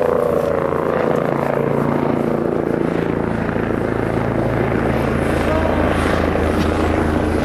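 Sightseeing helicopter flying close, its rotor beating with a rapid steady pulse over the engine's hum as it approaches, growing a little stronger in the low end near the end.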